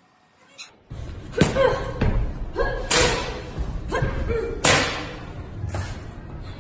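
A practice stick striking a padded target, a series of sharp hits about one a second, each echoing briefly in a large hall.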